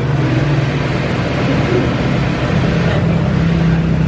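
Steady drone of industrial overlock sewing machine motors running. The hum steps up slightly in pitch about two and a half seconds in.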